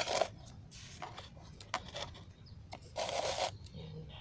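Rustling and scraping from hands handling small potted plants: two short bursts, one right at the start and a stronger one about three seconds in, with light clicks and taps between.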